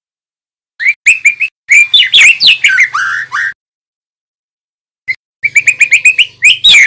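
Juvenile male white-rumped shama (murai batu, in its speckled 'trotol' stage) singing loudly: a burst of rapid whistled and chattering notes about a second in, a pause of over a second, then a second burst near the end.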